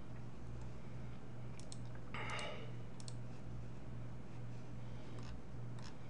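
Computer mouse clicking: a few faint, sharp, spaced-out clicks over a steady low hum, with a brief soft rustle about two seconds in.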